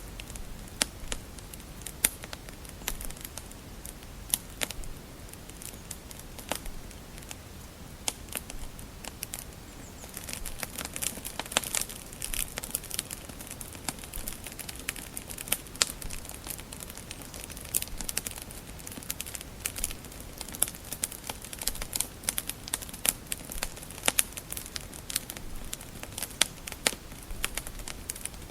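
Wood fire crackling in a fireplace: irregular sharp pops and snaps over a faint steady hiss, growing busier from about ten seconds in.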